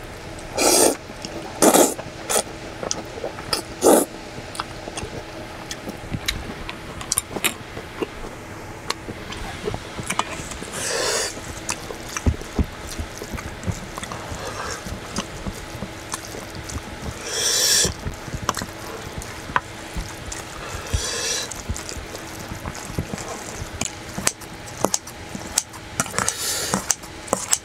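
Close-up eating sounds: a man slurping ramen noodles and chewing, with loud slurps three times in the first four seconds and again around eleven and seventeen seconds, over small clicks of utensils in a stainless steel bowl. Near the end, kitchen scissors snip the noodles in the bowl. A faint steady hum runs underneath.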